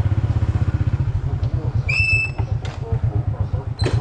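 Motorbike engine running with a fast, even low putter that loosens after about a second. A brief high whistle-like chirp comes about two seconds in.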